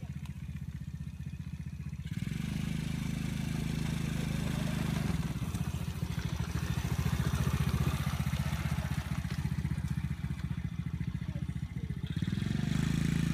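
Small youth ATV engine running as the quad is ridden, its pitch rising and dropping a few times.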